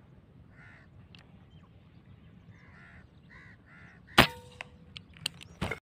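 A single sharp shot from a PCP air rifle about four seconds in, followed by a few lighter clicks. Before it there are only faint background sounds.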